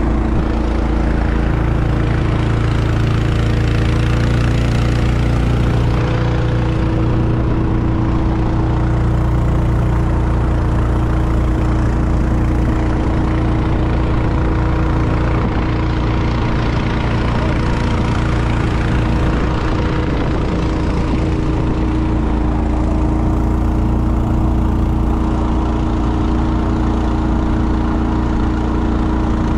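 13hp gasoline engine on a Feather Lite surface drive mud motor, running at steady cruising throttle and pushing a jon boat at about 16-17 mph: a loud, even drone.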